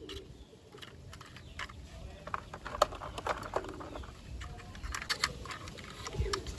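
Light plastic clicks and taps, irregular and scattered, as wheels are pushed onto a plastic toy vehicle by hand.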